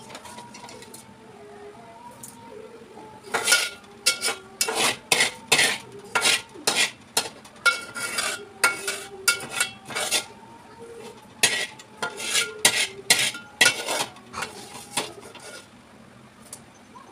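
Metal spatula scraping and knocking against a steel frying pan as fried onions are scraped out. The clatter starts about three seconds in, comes in quick irregular strokes, and dies down near the end.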